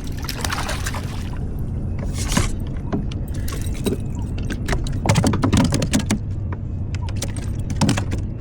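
Boat motor idling with a steady low hum, while fishing gear clicks and rattles as a caught calico bass is handled and unhooked, with a few short rustling bursts.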